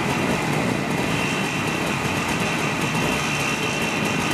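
Many small old motorcycle and scooter engines idling together, a steady dense churn of engine noise with no single engine standing out.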